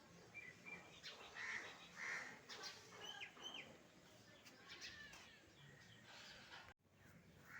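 Faint outdoor birdsong: crows cawing a few times, with short chirps from smaller birds.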